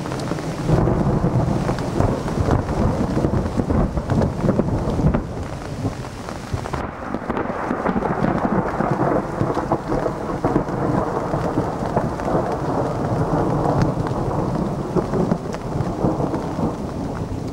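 Thunder rumbling and rolling on without a break, swelling up about a second in, with rain falling.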